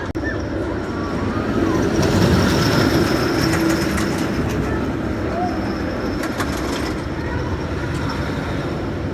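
Chance Hyper GT-X roller coaster train rumbling along its track, swelling louder a couple of seconds in and then easing, with faint voices of people in the background.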